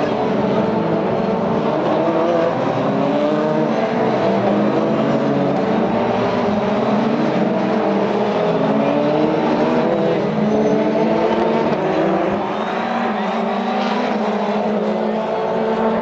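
Several open-wheel single-seater race cars running at racing speed, their engine notes overlapping and revving up and down continuously.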